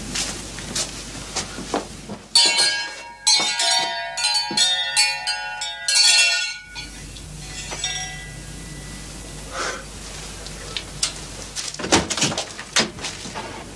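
A bell rings with several steady tones sounding together for about four seconds, starting a couple of seconds in and stopping abruptly. Scattered knocks follow near the end.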